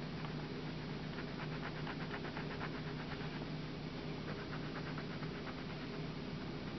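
Coloured pencil scratching on drawing paper in quick, even back-and-forth shading strokes, over a steady low hum.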